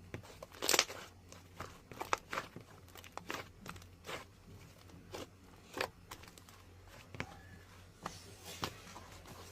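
Scattered light clicks and taps, irregular at about one or two a second, over a faint steady low hum.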